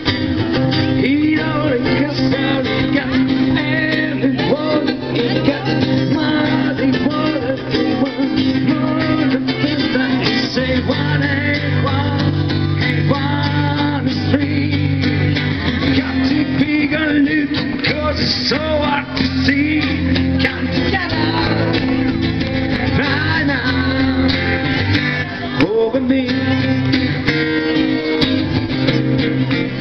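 Live amplified music from a small band: guitar playing over steady low bass notes.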